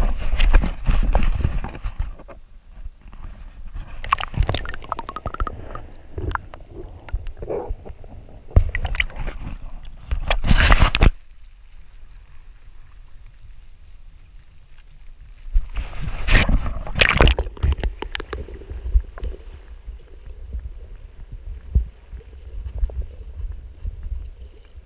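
Shallow seawater sloshing and gurgling around a camera held at and under the surface, with a muffled low rumble and several short bursts of splashing and handling noise.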